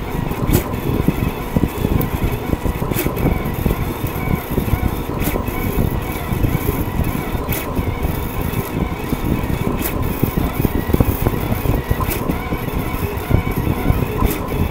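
Rostock delta 3D printer's stepper motors whirring and buzzing with constantly shifting pitch as they drive the carriages through a print at 50 mm/s. A sharp click recurs about every two seconds.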